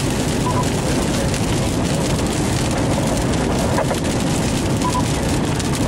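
Steady rain on a moving car, heard from inside the cabin, mixed with tyre and road noise on the wet road.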